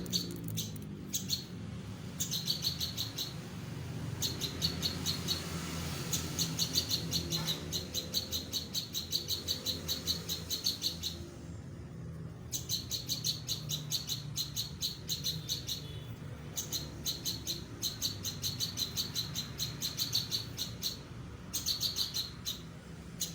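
A pelanduk bukit singing vigorously: long runs of rapid, repeated high chirping notes, a few a second, broken by short pauses, over a low background hum.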